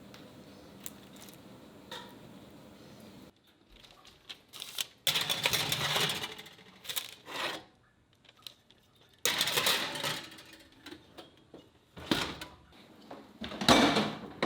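Kitchen work sounds in a small boat galley: clattering and clicking of utensils and dishes, with stretches of scraping or hissing noise, in several short edited segments.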